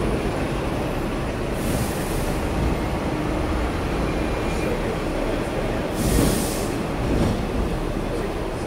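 Hong Kong double-decker tram running along its street track, heard from the upper deck: a steady low rumble, with two short hisses about two seconds in and about six seconds in.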